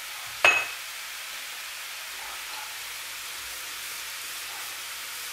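Sliced mushrooms, carrot and onion sizzling in oil in a frying pan: a steady soft hiss, with one short knock about half a second in.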